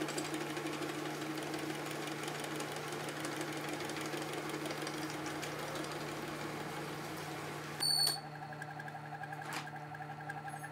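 Manual metal lathe running, its chuck spinning while a cutting tool turns a small steel firing pin: a steady hum under a dense, fast ticking. About eight seconds in there is a brief, sharp metallic ring and the cutting noise stops, followed by a single click.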